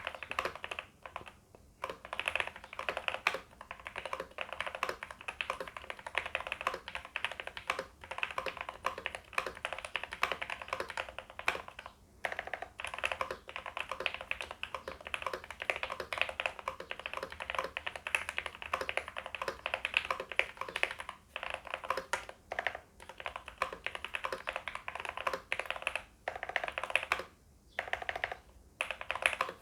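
Mechanical keyboard (Motospeed Darmoshark K5 with lubed Gateron Pro Red linear switches and PBT doubleshot keycaps) typed on in fast, continuous keystrokes, with a few short pauses. The foam-modded case, tape-modded PCB and lubed switches give it a poppy sound.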